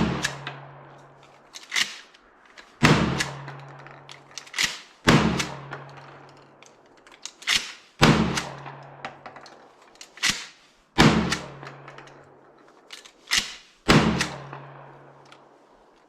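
Maverick 88 20 gauge pump-action shotgun firing six shots, about one every three seconds. Each shot is preceded by a shorter, quieter clack as the pump is worked. It fires on every shot, which the owner takes as a sign that the earlier hammer-drop fault is fixed.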